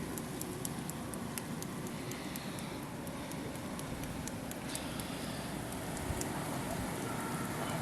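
Steady storm noise of snowstorm wind, with many scattered sharp ticks over it.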